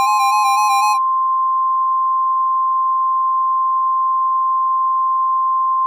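Emergency alert attention tone: one steady, unbroken electronic beep held for about five seconds, then cut off abruptly near the end. For the first second it overlaps the end of electronic music, which stops about a second in.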